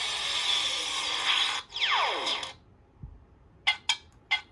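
Electronic sound effects from the speaker of a replica Season 4 'Gummi Bear' handlink prop: a harsh static-like buzz for about a second and a half, then a falling pitch sweep, then after a short pause three quick chirping beeps near the end.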